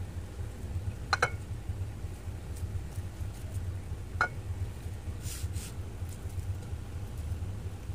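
Kitchen handling noises over a steady low hum: two sharp knocks about three seconds apart and a brief rustle, as hands work a whole raw chicken and its vegetable stuffing in a plastic tub.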